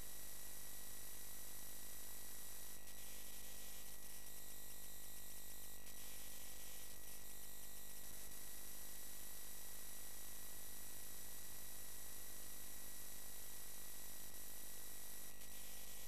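Faint steady electrical hum, buzz and hiss with several thin high whines: line noise on the Commodore 64's captured audio, with no sound from the program itself. The hiss shifts slightly in texture a few times.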